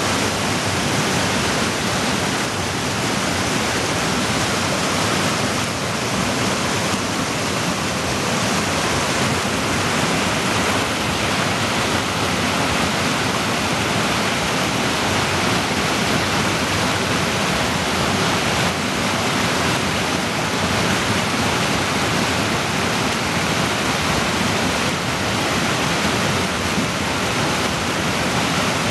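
A fast mountain creek rushing as whitewater over boulders in a rocky gorge: a loud, steady roar of water.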